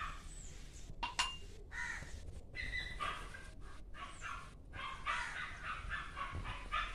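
Short, harsh animal calls repeated about twice a second, with a couple of sharp clicks about a second in.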